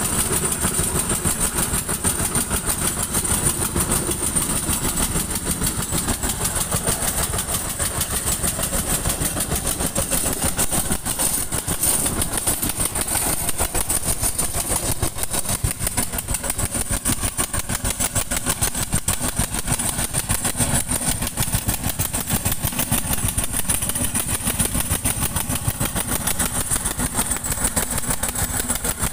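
A combustion engine of a machine running steadily and close to the microphone, with an even, fast beat that stays the same throughout.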